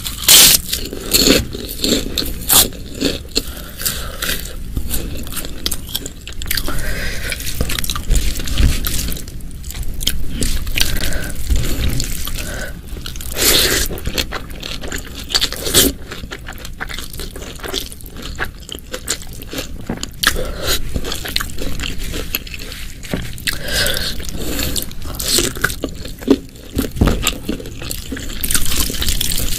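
Close-miked eating: a person chewing, with a steady, irregular run of crisp crunches and mouth clicks.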